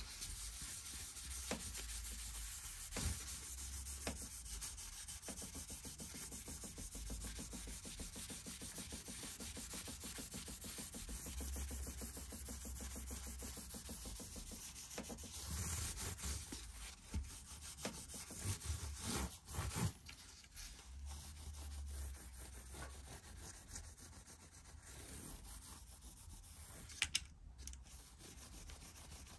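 A cloth rubbing oil into a guitar fretboard, soft back-and-forth wiping strokes along the neck and over the frets, with a few light knocks and a pair of sharp clicks near the end.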